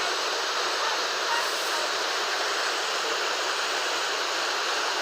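Waterfall, its water falling with a steady, even rushing hiss.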